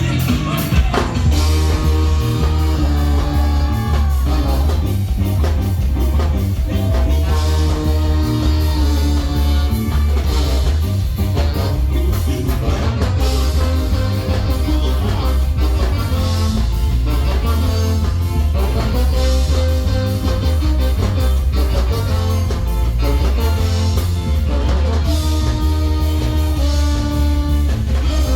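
Ska band playing: guitar and drum kit over a heavy, steady bass, with held melodic phrases coming back about every two seconds.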